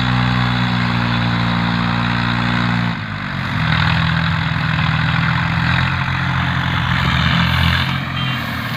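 Diesel tractor engines running steadily under load; about three seconds in the engine note drops to a lower pitch and then holds steady.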